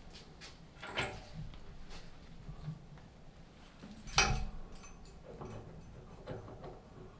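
Workshop handling clatter: a few separate knocks and clinks, the loudest about four seconds in.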